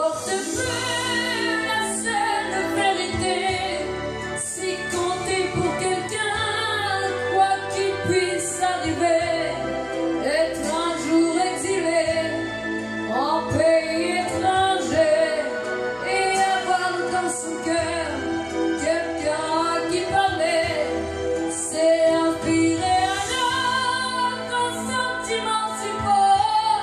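A boy singing a ballad into a handheld microphone over an instrumental backing track, his young voice wavering and sustaining long notes.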